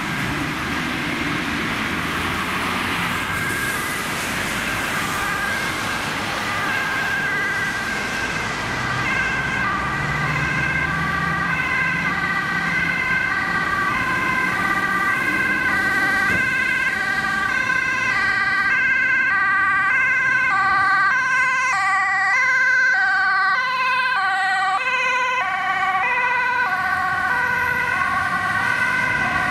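Dutch ambulance's two-tone siren, alternating high and low notes, coming in over road traffic and growing louder as it approaches. Its notes drop in pitch as it passes.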